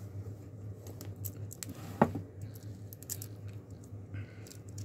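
Hands handling a tape measure on a desk mat, making light rustles and clicks, with one sharp click about two seconds in and a brief sliding sound near the end as the tape is drawn out.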